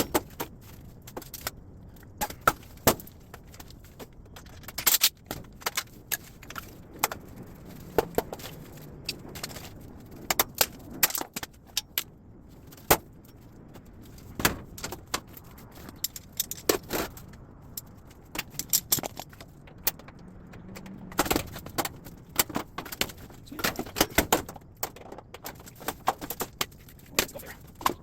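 Irregular metallic clanks, clinks and knocks of scrap metal being handled and sorted, some falling in quick clusters.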